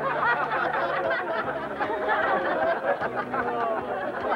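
Many voices chattering and chuckling over one another, with no single voice standing out, over a few low held tones underneath.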